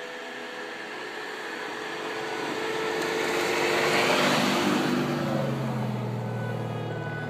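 Land Rover 4x4 driving past through deep snow. Its engine and the hiss of snow thrown up by the tyres grow louder to a peak about four seconds in as it passes close by, then fade as it moves away, leaving a lower engine hum.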